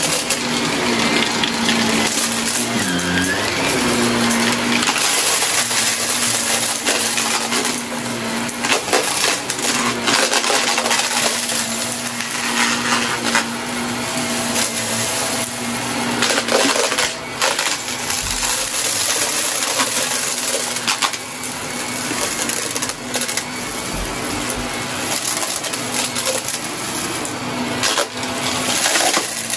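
Shark upright vacuum cleaner running over carpet: a steady motor hum under constant crackling and rattling as grit and small debris are crunched and sucked up.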